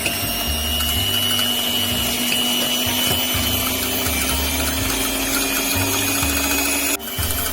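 Electric hand blender running steadily with a motor whine, beating eggs and oil in a bowl for cake batter. It breaks off briefly about seven seconds in and starts again.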